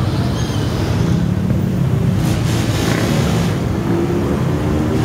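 Motorcycle engines running at low speed in slow, stop-and-go city traffic, a steady low hum with wind on the microphone.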